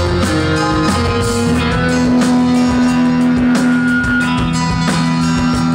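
Instrumental post-rock band playing live: electric guitar and keyboards over long held low notes, with a drum kit keeping a steady beat.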